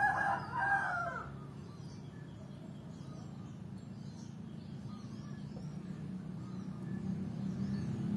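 A loud pitched animal call lasting about a second at the start, most like a fowl's call, with faint small-bird chirps throughout. A low engine hum slowly grows louder toward the end, as a vehicle approaches.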